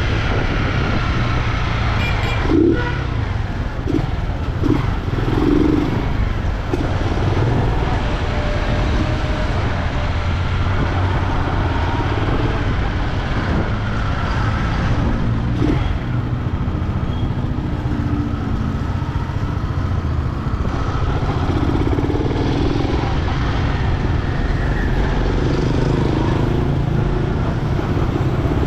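Honda CG Fan 125's air-cooled single-cylinder pushrod four-stroke engine running steadily under way, with the carburettor drawing air through an open intake because the air filter has been removed.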